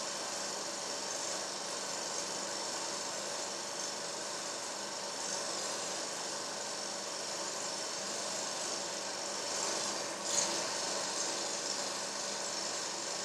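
Steady mechanical whirring drone with hiss, unbroken, with a brief swell of higher hiss about ten seconds in.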